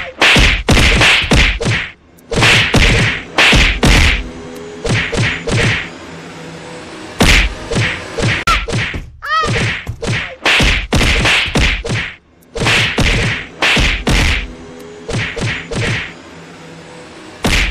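Rapid runs of loud whacks and thuds from a beating, with blows from hands and a bamboo stick. They come in quick clusters with short gaps, and the same pattern of blows comes again about nine seconds in.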